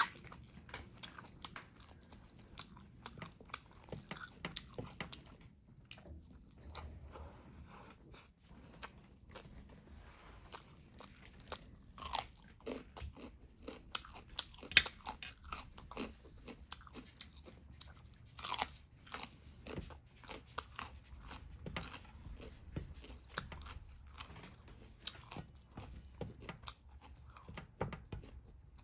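A person eating close to the microphone: irregular chewing and biting with crunchy clicks, the loudest crunch about halfway through.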